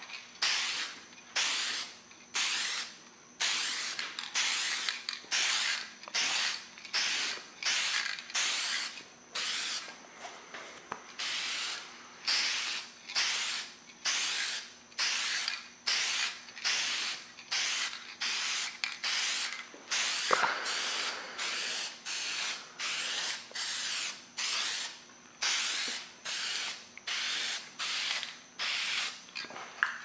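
Aerosol spray paint can hissing in short bursts, about one a second, each lasting under a second, as light mist coats are sprayed on.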